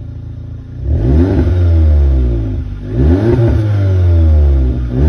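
2015 Audi S3's turbocharged 2.0-litre four-cylinder idling, then revved twice, each rev held for about two seconds and kept gentle because the engine is on a cold start. The exhaust has its resonator deleted but keeps the full cat system.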